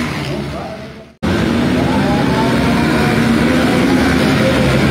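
Motorcycle engines running, fading away over the first second. After a sudden cut, a group of motorcycle engines revving together on a starting grid, several engine notes wavering in pitch.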